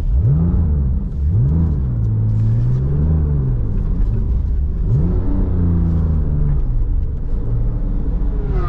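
Car engine revving up three times, each rise climbing quickly and then easing off, over a steady low rumble, heard from inside a stopped car's cabin.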